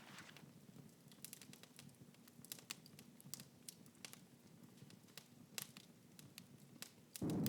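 Quiet room tone with scattered faint clicks and crackles. Near the end a loud, steady low rumbling drone cuts in abruptly.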